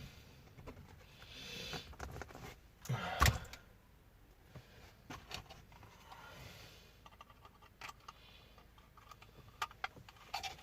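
Small clicks, ticks and rustling of hands working with wires, crimp terminals and tools, with one louder knock about three seconds in.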